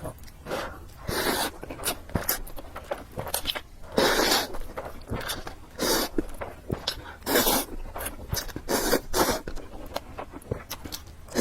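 A person eating noodles close to the microphone: a run of short, irregular slurps with chewing and wet mouth clicks between them.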